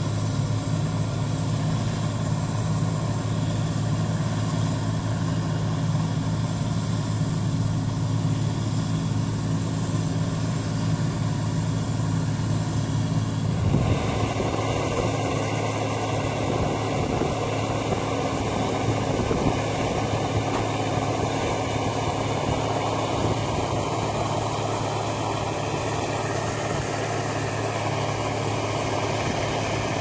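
Gleaner combine running steadily while unloading through its auger, a low even engine hum. About 14 seconds in the sound changes abruptly to a close, steady rushing hiss of grain pouring from the unloading auger spout onto the load in the truck bed, with the machine running underneath.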